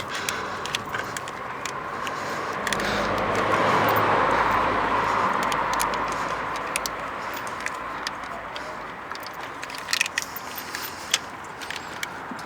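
A passing car: the sound swells to a peak about four seconds in and fades away. Small clicks and taps from handling parts are heard throughout.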